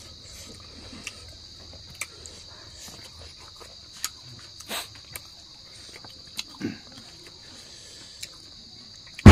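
A steady high-pitched chorus of night insects, with scattered soft clicks and smacks of hands tearing roast chicken and mouths chewing. Right at the very end a sudden, very loud bang cuts in.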